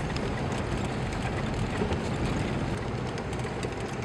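Military vehicle engine running steadily on the move, with light rattles from the vehicle.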